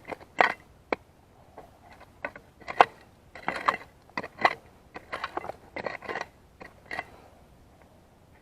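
Hand digger scraping and crunching into soil in a quick, irregular run of strokes while digging out a metal detector target. It stops about seven seconds in.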